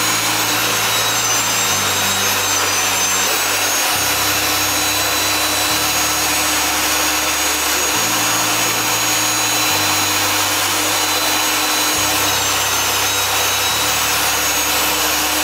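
Prototype jet engine spinning on a dry run without fuel: a steady high whine over rushing air hiss, the pitch wavering slightly now and then. The engine is turning at about 7,000–8,000 RPM.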